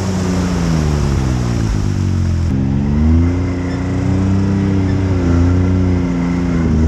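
Side-by-side UTV engine running while driving, its pitch rising and falling as the throttle comes on and off, with an abrupt change in the background hiss about two and a half seconds in.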